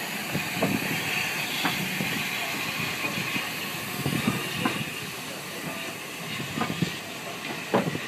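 Steady hiss of steam from a Southern Railway U class 2-6-0 steam locomotive, heard close up at the wheels, with scattered short metallic knocks and clanks from the locomotive.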